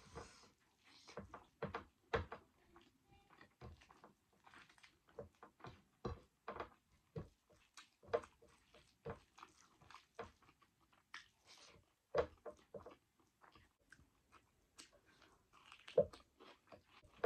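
A person eating rice and dal by hand: fingers mixing the food on a plate and chewing, heard as many short, irregular wet clicks and smacks.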